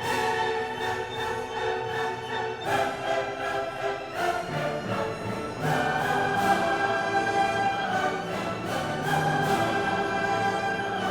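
Orchestral background music, held chords changing every few seconds.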